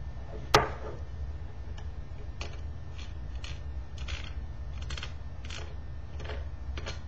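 Small screwdriver working the screws of a laptop's metal heat sink and fan shroud. There is a sharp metallic click about half a second in, then light clicks and scrapes from the tool and the parts being handled, over a steady low hum.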